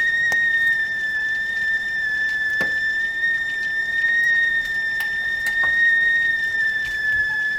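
Stovetop kettle whistling at the boil: one steady high whistle, its pitch wavering only slightly, with a few faint clicks.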